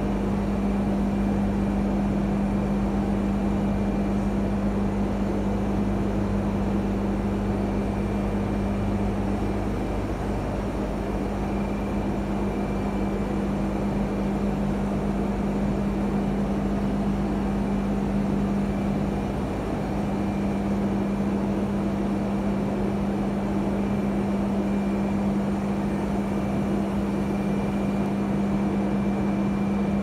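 Steady hum of hydroelectric power plant machinery, with one strong low tone and a faint high whine above it, unchanging throughout.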